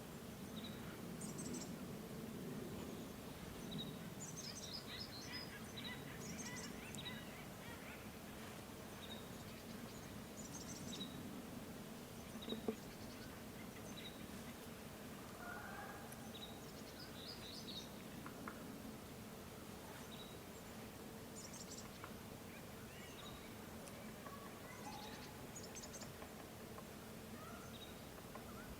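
Wild birds calling in a mountain forest: one bird repeats a short high note about every second and a half while others give scattered high chirping trills and a few lower calls. A faint steady low hum runs underneath, with a single sharp click about halfway through.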